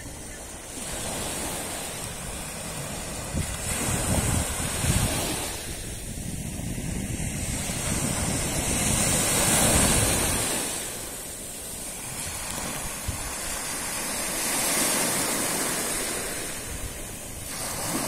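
Small sea waves breaking and washing up a sandy shore, the wash swelling and falling back every few seconds, with wind buffeting the microphone.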